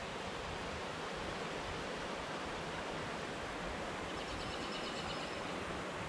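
Creek water running over rocks: a steady, even rushing.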